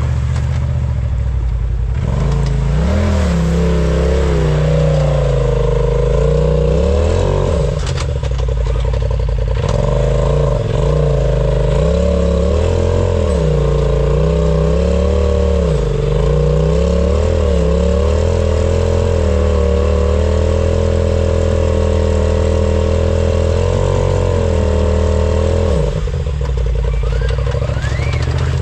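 Off-road vehicle engine revving up and down over and over, working under load on a rock climb. The revving starts about two seconds in and drops back to a lower, steadier note near the end.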